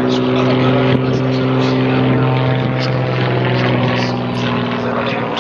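Propeller engine of an aerobatic display plane droning steadily overhead as it flies a smoke-trailing manoeuvre, growing slightly quieter near the end.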